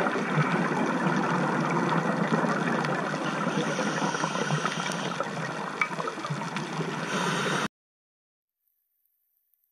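Steady underwater rush of water and bubbles, heard underwater, with a few faint clicks scattered through it. It cuts off suddenly near the end.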